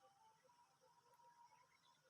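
Near silence: a pause between calls.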